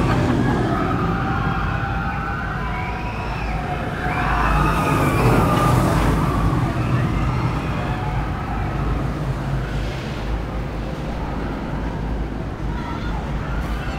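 Many riders screaming on a roller coaster some way off, wavering high voices rising and falling through the middle, over a steady low rumble.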